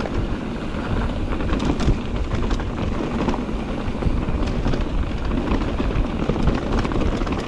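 Electric mountain bike riding down a rough dirt trail: tyres rolling and crunching over stones and the bike rattling, with frequent sharp knocks, under heavy wind rumble on the microphone.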